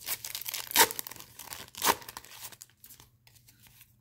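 A 1990 Pro Set football card wax pack being torn open: the paper wrapper crinkles, with two sharp rips about a second in and just before two seconds, then the sound dies down.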